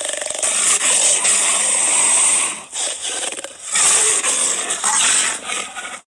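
Arabian leopard growling in long, raspy stretches, with short breaks about three seconds in and again near the end.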